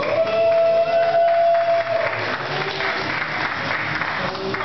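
A small crowd applauding while entrance music plays. The music opens with a note that rises in and is held for about two seconds.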